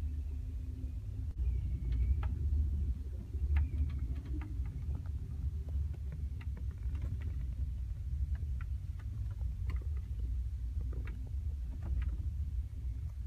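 Low, steady rumble of a passenger train car rolling slowly along the track, heard from inside the car, with scattered light clicks and rattles throughout.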